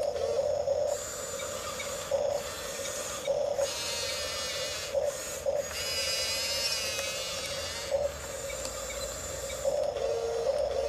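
Huina 1554 1/14-scale RC bulldozer running: a steady hum with short louder pulses every second or two, under a high motor-and-gear whine that starts about a second in, cuts out briefly a few times, warbles in the middle and stops near the end.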